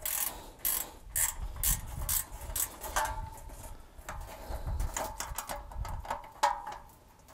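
A 7/16 ratchet wrench clicking in quick repeated strokes as it tightens the nuts on the bolts joining a satellite dish's reflector plate to its polar plate.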